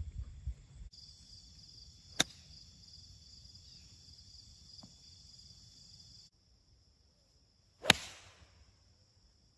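Two golf club strikes on the ball: a sharp click about two seconds in, and a loud driver impact near the end with a short ringing after it. Insects chirr steadily behind them.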